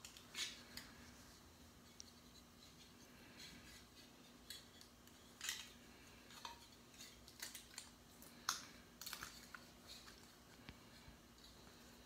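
Faint, irregular small clicks and light scrapes of plastic parts and a circuit board being handled and pried apart by hand: a Kindle e-reader's board being worked loose from its plastic frame.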